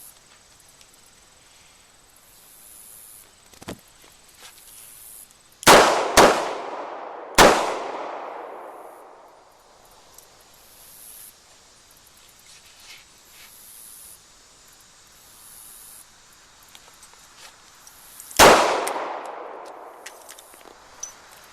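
Smith & Wesson 360 snub-nose revolver firing .38 Special rounds. There are two quick shots half a second apart and a third about a second later, the two-to-the-body, one-to-the-head pattern of a failure drill. A single shot follows about eleven seconds after, and each shot rings on with a long echo.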